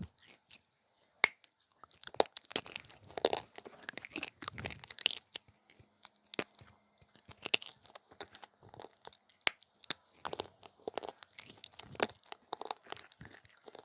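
Biting and chewing brittle coloured clay pieces: irregular sharp crunches and crackles, several a second.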